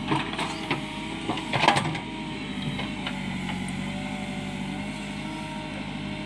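JCB backhoe loader's diesel engine running steadily with a faint wavering whine as its bucket digs a trench. There are knocks and clatter of soil and stones in the first two seconds, the loudest just before two seconds in.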